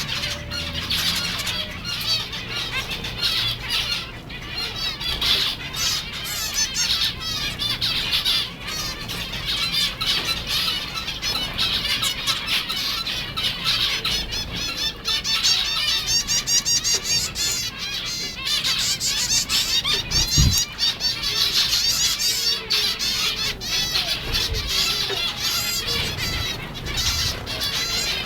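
A flock of zebra finches calling over one another in a dense, continuous chatter of short chirps, with wings fluttering. A single dull thump about twenty seconds in.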